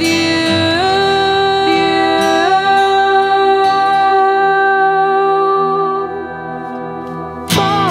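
Pop rock song: a long sung note, stepping up in pitch twice in the first few seconds and then held, over guitar. Near the end the band comes back in at full volume.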